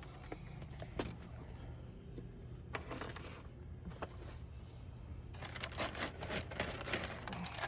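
Birdcage bedding being handled and smoothed by hand: scattered rustles, scrapes and light clicks, turning into a busy stretch of rustling near the end, over a steady low hum.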